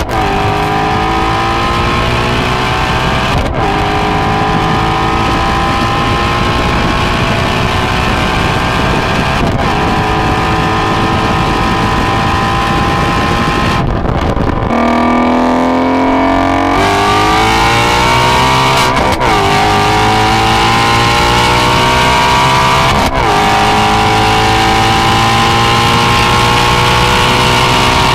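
2017 Ford Mustang Shelby GT350's 5.2-litre flat-plane-crank V8 accelerating through the gears, its note climbing steadily and dropping back at each of about five gear changes.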